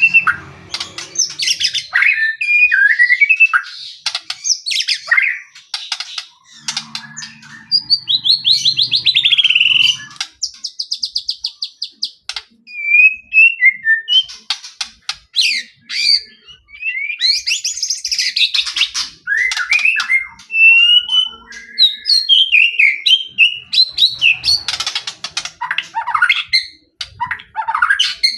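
White-rumped shama (murai batu) singing continuously in vigorous full song: a varied run of whistled phrases that glide up and down, fast trills and harsh rattling notes, broken up by sharp clicking calls.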